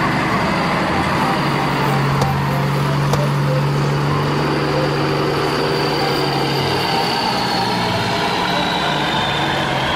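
Vehicle engine running steadily, a low hum with a faint high whine over it, cutting off suddenly at the end.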